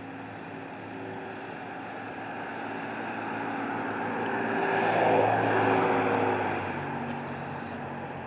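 An engine passing by: a steady hum that grows louder to a peak about five seconds in, then fades.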